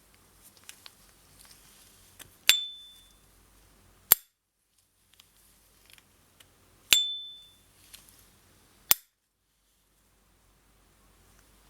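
S. T. Dupont Ligne 2 lighter's cap flicked open twice, each time with a sharp click and a clear, high ringing ping that dies away in under a second, and each time snapped shut a second or two later with a short, dry click.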